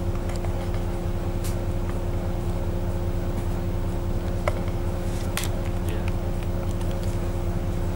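Bus engine running, heard from inside the cabin: a steady low hum with a constant whine over it and a few faint clicks midway.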